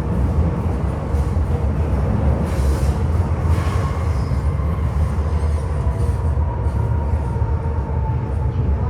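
Interior of an MTR M-Train carriage running on the Tsuen Wan line: a steady heavy rumble of wheels and running gear, with a couple of brief hisses a few seconds in. In the second half a faint high whine slowly drops in pitch.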